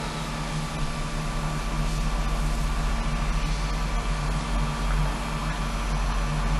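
Steady low hum with even hiss: the background noise of a taped interview recording.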